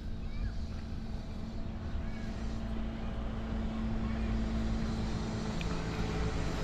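A motor running with a steady low drone that drops a little in pitch about five and a half seconds in, while seagulls call faintly now and then.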